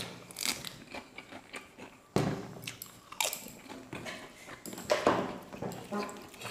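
Close-miked eating: crisp fried papad (papadum) crunching in bites and being chewed, a string of irregular sharp crunches with the loudest one about two seconds in.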